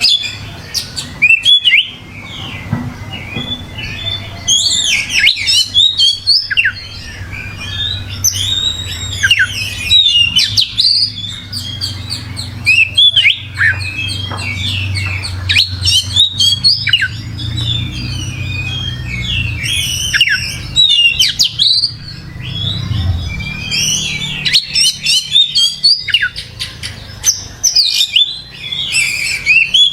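Oriental magpie-robin (kacer) singing a loud, varied song of rapid whistles, slurred notes and chirps, in bursts separated by short pauses. A low hum runs beneath the song through the middle part.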